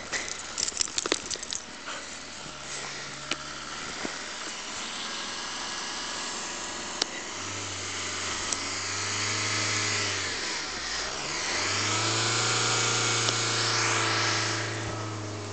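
A van driving along a snow-covered road: a steady engine hum and tyre noise that grow louder through the second half, with the pitch sweeping as it approaches and passes. A few sharp clicks come in the first two seconds.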